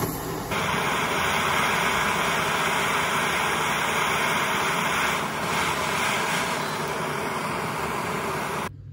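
Butane blowtorch on a gas canister burning with a steady hissing flame, which starts about half a second in and cuts off sharply near the end.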